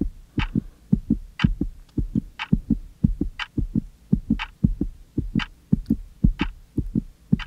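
Wall clock ticking evenly, about once a second, over a faster, steady run of low thumps, about three a second.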